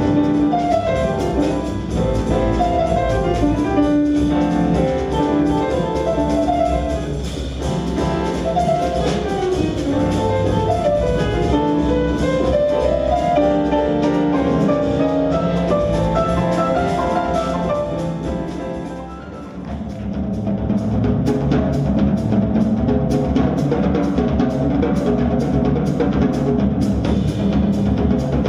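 Live jazz band playing an instrumental passage without vocals, melodic lines over bass and drums. About two-thirds of the way through the music briefly dips, then picks up with the drums keeping steady time on the cymbals.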